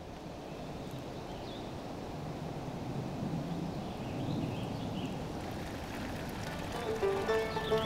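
Outdoor ambient noise that slowly swells, with a few faint bird chirps over it. Near the end, a plucked banjo melody fades in.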